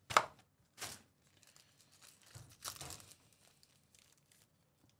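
Trading card hobby box being opened and its foil-wrapped card pack handled: a few sharp crinkling and tearing noises, the loudest right at the start, then faint rustling.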